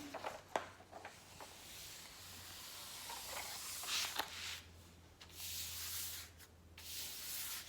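Soft rustling and rubbing as a diamond-painting canvas is handled: a few light clicks at first, then several longer swishes in the last few seconds.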